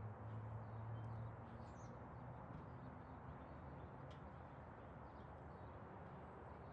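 Near silence: a faint steady hiss with a weak low hum that fades after about a second.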